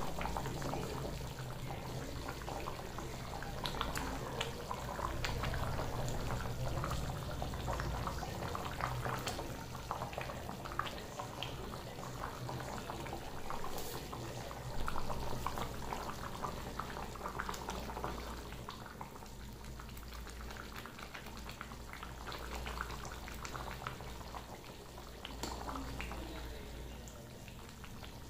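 Thick chicken curry gravy boiling in an open pot: a continuous stream of small bubbling pops and plops over a steady low hum.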